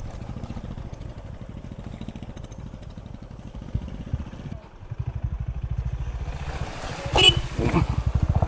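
A single-cylinder 350 cc motorcycle engine thumping steadily at low revs while riding slowly over a rough off-road track. It eases off briefly around four and a half seconds in, then pulls harder again.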